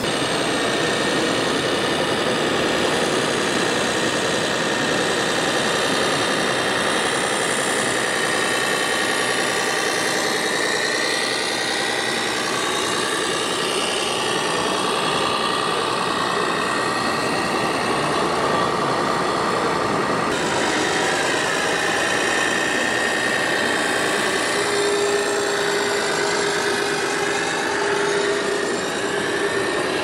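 Radio-controlled 1:8-scale construction models running, with a steady engine-like drone and the whine of their motors gliding up and down in pitch as they move.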